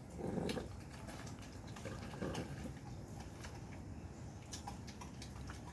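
Pit bull puppies chewing and tugging at a steak: scattered small clicks and smacks of teeth on meat, with a couple of faint low sounds near the start and about two seconds in.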